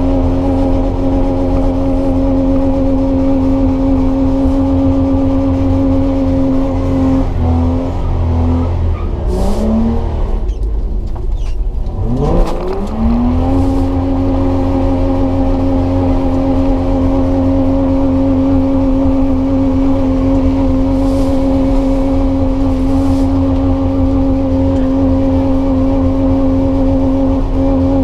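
Nissan TB48 4.8-litre straight-six, with aftermarket headers, held at high steady revs, heard from inside the cab. About seven seconds in the revs fall away, then about twelve seconds in they climb sharply back up and hold steady again.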